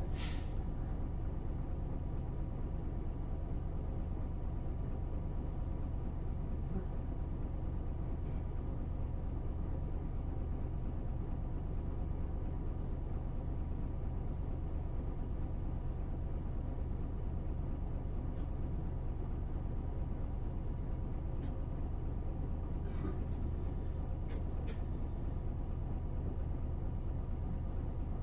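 Hankyu city bus's diesel engine running at a steady low hum, with a faint steady high tone alongside and a few short clicks near the end.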